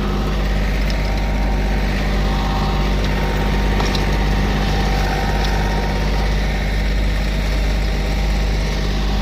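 Heavy diesel paving machinery running steadily at a constant speed.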